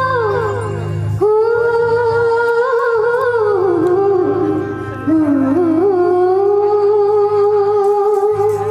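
A woman sings a Hindi bhajan live into a microphone over a PA, holding long notes that waver and slide in pitch. Steady instrumental accompaniment plays underneath, and a new phrase comes in strongly about a second in.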